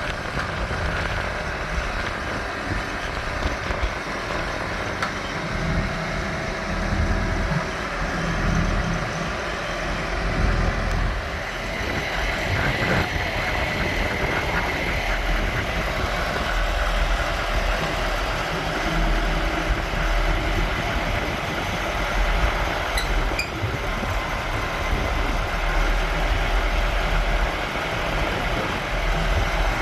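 Massey Ferguson 390 tractor's 4.1-litre diesel engine running steadily, with its low rumble swelling and easing at times.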